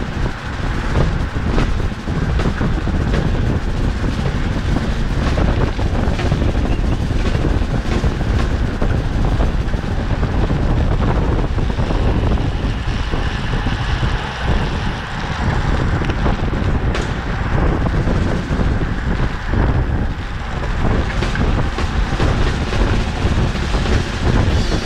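Wind rushing and buffeting over the microphone of a bicycle ridden at racing speed, a loud, steady low rumble with faint clicks scattered through it.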